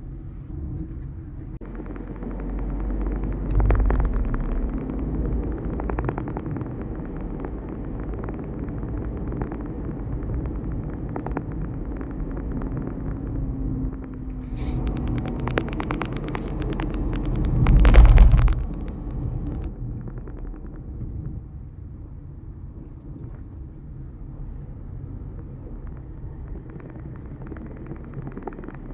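Road vehicle running on a road: a steady low rumble that swells louder about three seconds in and again to its loudest about eighteen seconds in, then eases back.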